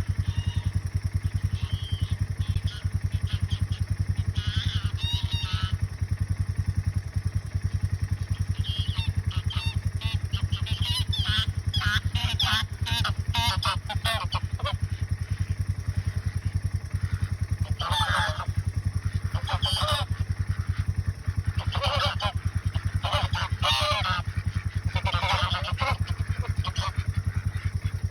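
Geese honking in repeated bursts, loudest in the second half, over the steady running of a side-by-side utility vehicle's engine.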